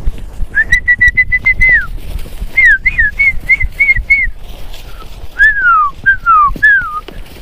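A person whistling to drive cattle: three runs of short, sharp whistled notes on one high pitch, each run ending in falling notes, the last run made mostly of downward glides.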